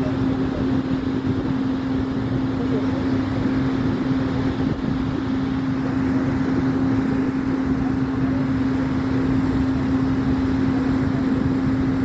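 Diesel engines of concrete pump and mixer trucks running steadily: a constant drone with one strong held tone over a low rumble.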